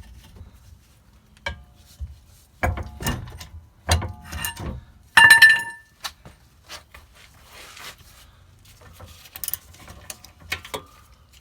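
Metal hand tools and brake hardware clinking and knocking: several knocks between about two and a half and five seconds in, then a loud ringing metal clang just past five seconds, with lighter clicks after.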